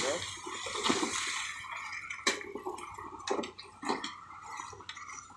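Wet concrete sloshing and splattering as it is poured onto a slab, with a few sharp knocks.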